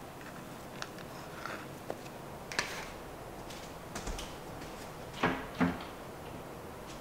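Wooden kitchen cabinet door being opened, with two knocks a little after five seconds in, the loudest sounds here. Before them come a few light clicks and taps.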